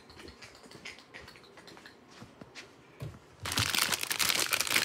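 Faint handling clicks, then about three and a half seconds in a chip bag of Cheetos Crunchy starts crinkling loudly as it is picked up and handled.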